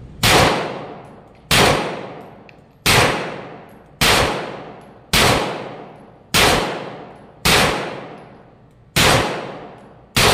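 Iron City Rifle Works PCC9 Berserker 9 pistol-caliber carbine firing 9mm rounds in slow, evenly spaced single shots: nine shots, about one every second and a quarter. Each shot rings out in a long reverberating tail off the hard walls of an indoor range.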